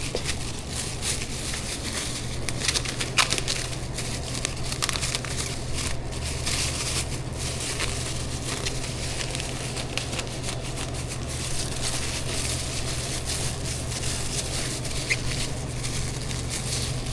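Kitchen food-prep handling noise: irregular rustling, crinkling and light clicks as burgers are put together, over a steady low hum, with one sharper click about three seconds in.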